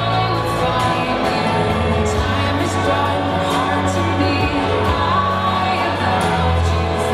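A pop song playing: a singer over sustained bass notes and a steady beat.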